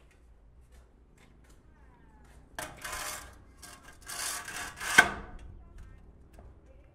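A large builder's square scraping against a plastered wall as it is pushed into the corner. There are two rough scrapes, each about a second long, and the second ends in a sharp knock about five seconds in.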